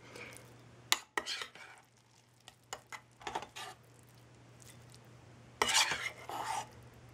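Metal spoon scraping and clinking against the stainless steel inner pot of a lunch warmer while scooping out soft scrambled eggs, in scattered bursts; the loudest run of scrapes comes about five and a half seconds in.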